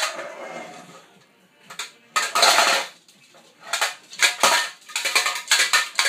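Metal pots, pans and kitchen utensils clanging and clattering. A sharp clang at the start rings on for about a second, followed by bursts of rattling and clanking that come thick and fast in the last two seconds.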